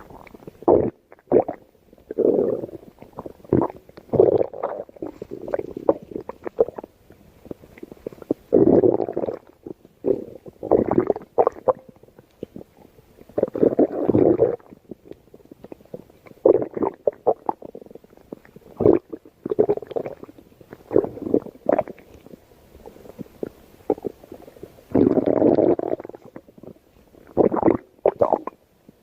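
A stomach growling in irregular bursts with short pauses between them, most brief and a few drawn out for about a second.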